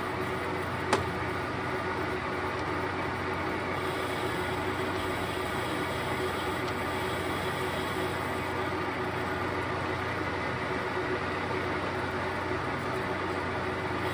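Lathe running steadily, a constant machine hum with a few fixed tones, and one sharp click about a second in.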